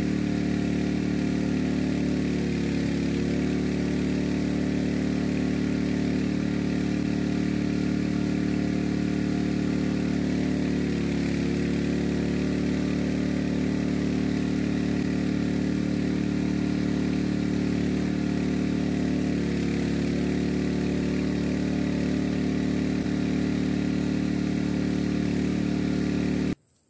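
Small engine-driven pump running steadily at one speed while jetting a well; the sound cuts off abruptly near the end.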